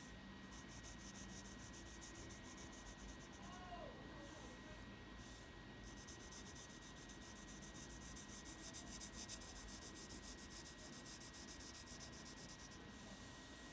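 Faint scratching of a graphite pencil on paper as it hatches shading with quick back-and-forth strokes, in two runs with a pause of about two seconds between them.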